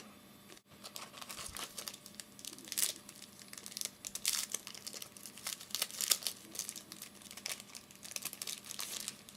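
A trading-card pack wrapper being torn open and crinkled in the hands, with irregular crackles and rustling.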